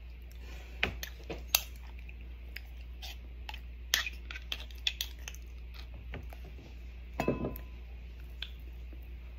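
Metal spoon clinking and scraping against a glass jar of shrimp paste as it is scooped out: scattered sharp clinks, with a quick cluster that briefly rings about seven seconds in.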